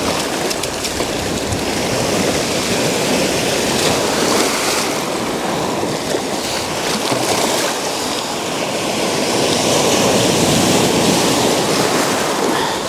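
Shallow surf breaking and foaming around the ankles, a steady wash of sea water over sand and rocks that swells louder about ten seconds in.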